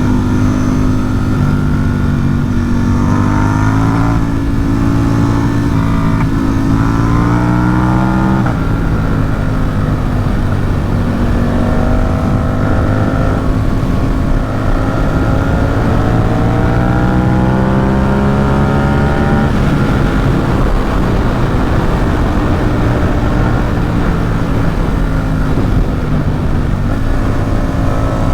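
Ducati Supersport 950 S's 937 cc L-twin engine, breathing through an aftermarket Competition Werkes exhaust, heard from the rider's seat while riding. The revs climb and then drop at a gear change about eight seconds in. They climb again to another shift a little before the twenty-second mark, hold fairly steady while cruising, and rise once more near the end.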